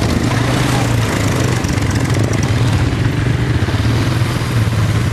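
Quad bike (ATV) engines running steadily at low idle close by.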